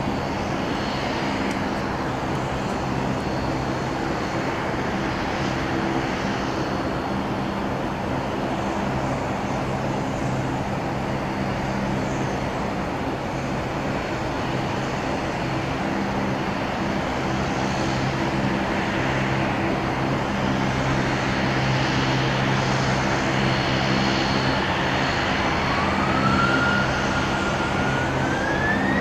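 Airbus A320-214's twin CFM56-5B turbofan engines running at idle thrust as the jet taxis onto the runway: a steady engine hum. About 25 seconds in, a whine starts climbing in pitch and the sound grows louder, the engines spooling up for the takeoff roll.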